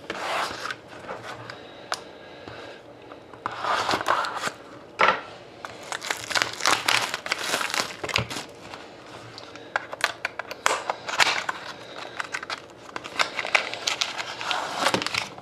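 A cardboard trading-card mini box being opened and its foil-wrapped card packs handled: irregular crinkling of foil wrappers mixed with sharp clicks and taps of cardboard.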